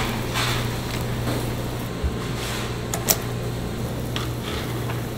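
A steady low machine hum, with a dull thump about two seconds in and one sharp click about three seconds in as fish are handled on the wire rack of a charcoal grill.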